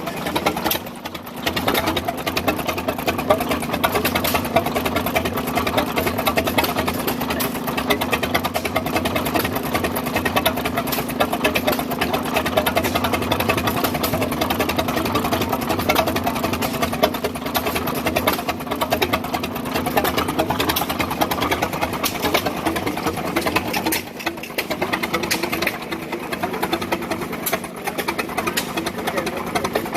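1920 Harris Mfg. Co. 25-30 hp combine harvester engine running steadily with a fast, even clatter of firing strokes. It eases off briefly about a second in and again about two-thirds of the way through.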